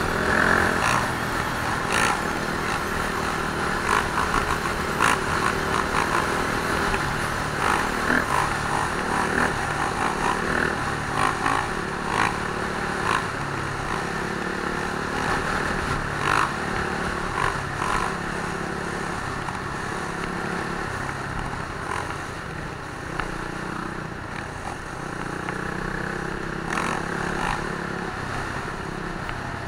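Dirt bike engines running and revving, their pitch rising and falling.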